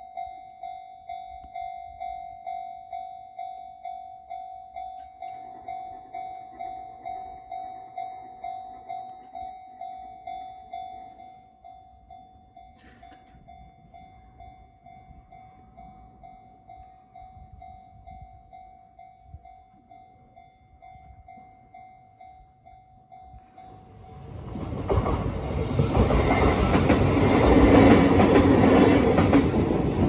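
Japanese level-crossing warning bell on the Kintetsu Yoshino Line ringing steady dings, about two a second, dropping in volume about eleven seconds in. Near the end a train arrives, and its loud rumbling over the rails drowns out the bell.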